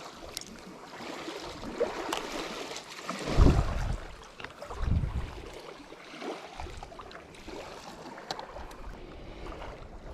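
Steady wash of outdoor noise, likely wind and water, with two louder low rumbles about three and a half and five seconds in.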